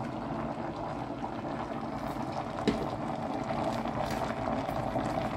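Steel pot of pig trotters, greens and eggplant chunks simmering on the heat: a steady crackly bubbling, with one sharp click about two and a half seconds in.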